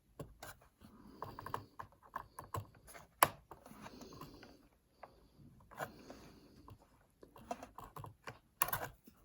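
Irregular small clicks and taps of hands working a cable connector loose inside an opened iMac, with one sharper click about three seconds in and a few more near the end.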